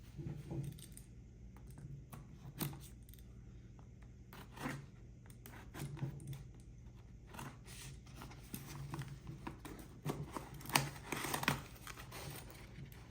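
A package being cut and torn open with a balisong (butterfly knife): the blade slicing tape and the packaging tearing, with scattered clicks and scrapes that grow busier near the end.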